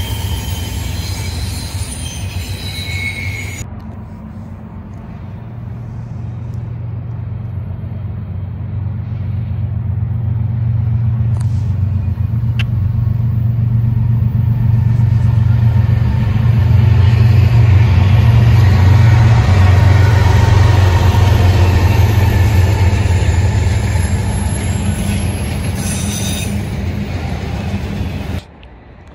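Freight trains rolling past close by: the deep, steady rumble of diesel locomotives and steel wheels on rail, growing louder to a peak about two-thirds of the way through and then easing. Thin wheel squeals sound in the first few seconds.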